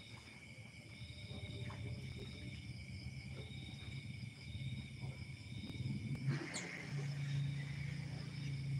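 Night insects, crickets among them, trilling steadily at a high pitch. Under them runs a low steady hum that grows louder about seven seconds in, and there is a brief rustling scrape about six seconds in.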